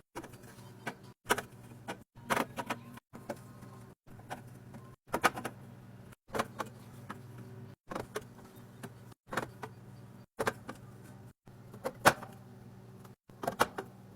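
Drinks being restocked into a refrigerator: bottles and cans set on shelves, with clinks and knocks over a steady low hum. The sound stops dead and restarts about once a second, as short clips are cut together.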